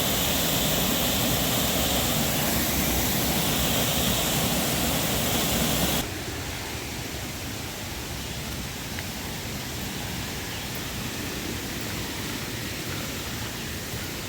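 Waterfall, a steady rush of falling water. About six seconds in it drops abruptly and carries on quieter.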